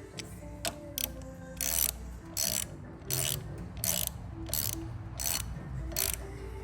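Ratchet wrench being worked in short, even strokes, about one every 0.7 s, as parts are tightened back together on a pressure washer. Faint background music with held notes runs underneath.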